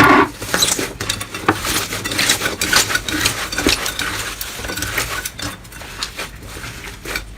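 Slime being pressed and worked by hand, giving a dense run of small crackles, clicks and pops, loudest at the very start.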